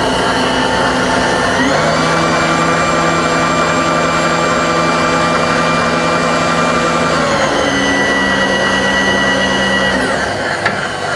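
Bridgeport milling machine's electric power-feed motors driving the table axes, a steady multi-tone whine. About two seconds in the pitch glides up as rapid override speeds the feeds up, holds, then glides back down after about seven seconds, and the motors stop near the end.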